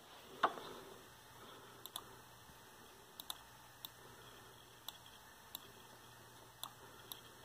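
A thump about half a second in, then light, irregular clicks at a laptop as it is worked, over a faint low hum.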